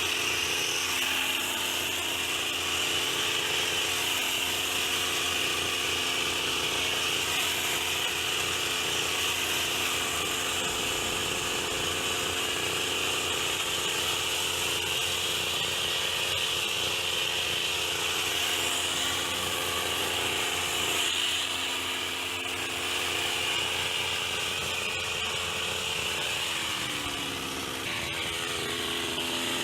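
Petrol hedge trimmer's small two-stroke engine running steadily at high speed, easing off briefly near the end and then picking up again.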